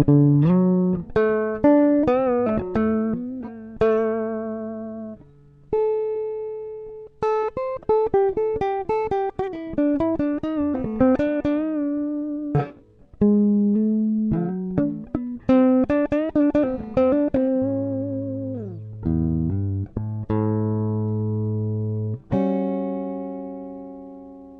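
Music: a slow single-note melody on a plucked string instrument, notes picked one after another and held with vibrato, with slides between some of them. The last note rings out and fades.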